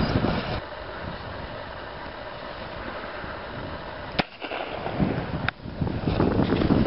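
Handheld signal flare pistol fired into the air: two sharp bangs just over a second apart, over steady outdoor noise.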